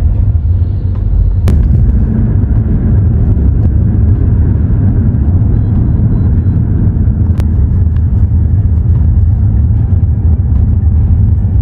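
Steady low road and engine rumble heard from inside a moving car's cabin, with two brief clicks, about a second and a half in and again past the middle.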